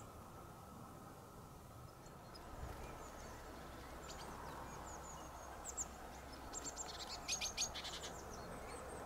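Small songbirds chirping faintly: scattered short, high calls starting a few seconds in, then a quick run of rapid notes near the end, over a faint low background hush.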